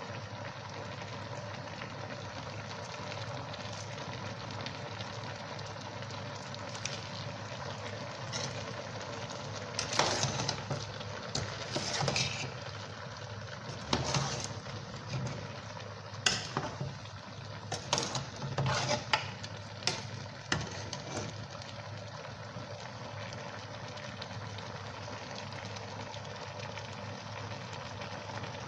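Cooking in a metal pot over a steady background hum. From about ten seconds in, there is a run of irregular clatters and knocks, a utensil stirring the food and striking the pot, which stop after about twenty seconds.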